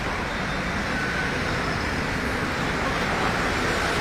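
Road traffic noise with a small goods truck's engine running as it drives up close, getting slightly louder near the end.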